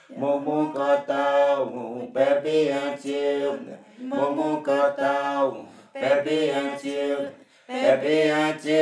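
Unaccompanied chanted singing in repeated phrases of about two seconds, each followed by a short break.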